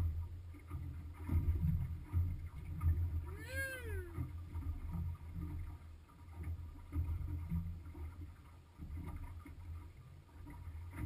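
Wind and water noise around a small open boat, a low uneven rumble on an action camera's microphone. One drawn-out call rises and then falls in pitch about three and a half seconds in.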